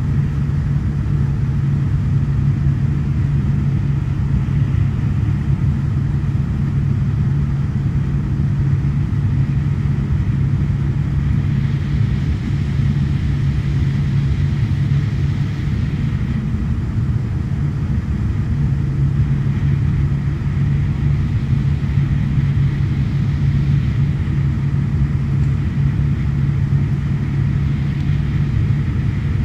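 Cabin noise of a Fokker 50 turboprop airliner in flight: a steady drone from its twin turboprop engines and six-blade propellers, with a low propeller hum that dips briefly about halfway through.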